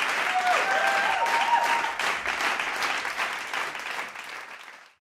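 A crowd applauding, with a short cheer about half a second in. The clapping dies away over the last couple of seconds and cuts off to silence just before the end.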